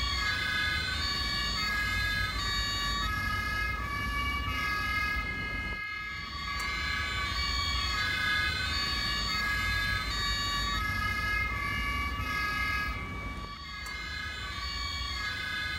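Emergency-vehicle two-tone siren, its steady notes stepping back and forth between a high and a low pitch, with more than one siren overlapping over a low rumble. It drops out briefly twice, about six seconds in and again near the end.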